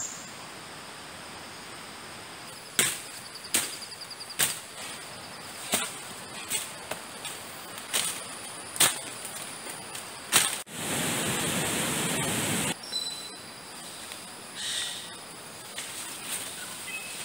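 Footsteps through forest floor litter and undergrowth: sharp cracks and crunches of dry leaves and twigs, roughly one a second, over steady high-pitched insect trilling. Just past the middle, a steady rush of noise runs for about two seconds and cuts off suddenly.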